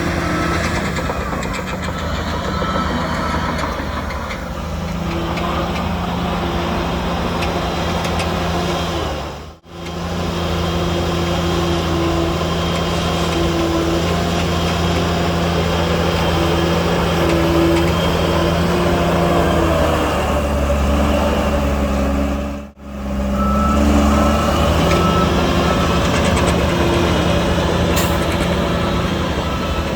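Diesel engines of heavy earthmoving machinery (bulldozer and dump trucks) running steadily, with a reversing alarm beeping at the start and again in the last several seconds. The sound drops out briefly twice.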